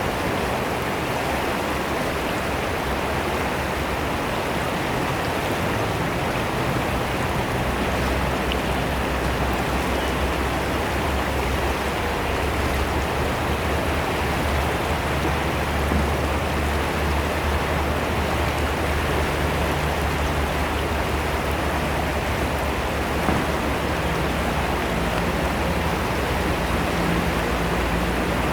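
Fast-flowing river water rushing and splashing, a steady sound with no breaks.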